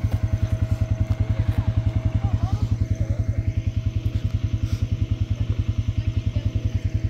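ATV engine idling steadily, a fast, even low putter of about ten beats a second.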